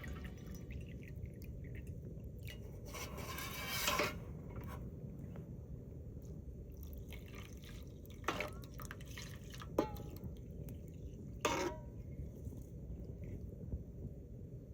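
Small items being handled: a rustle about four seconds in, then three short clinks a second or so apart, over a steady low background rumble.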